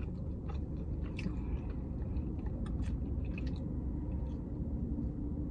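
Faint mouth sounds of sipping an orange Fanta through a straw: scattered small clicks and slurps over a steady low rumble inside the car.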